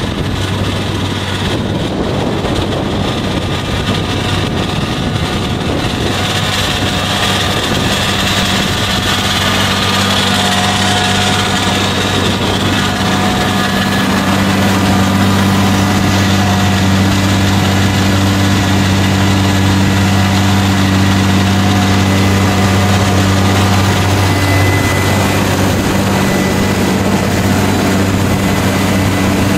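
Large tractor's diesel engine running steadily under load while pulling a disc harrow through the soil, with a rushing noise of the work over it. The engine hum grows louder and clearer about halfway in as the tractor passes close by.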